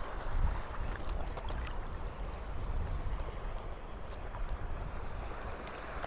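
Steady rush of wind and breaking waves over a shallow reef, with a few faint clicks in the first second and a half.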